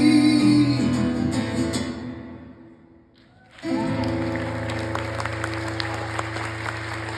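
A live band's final chord rings out and fades away over about two seconds. After a brief hush, the audience breaks into applause.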